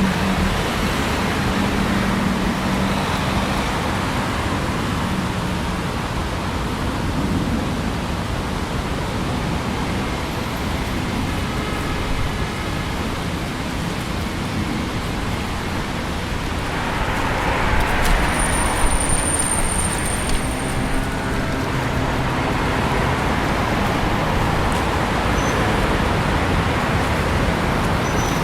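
Steady road-traffic ambience of a busy city avenue: a continuous wash of cars passing, with low engine hum coming and going. About two-thirds of the way through, a louder vehicle goes by with a few sharp knocks.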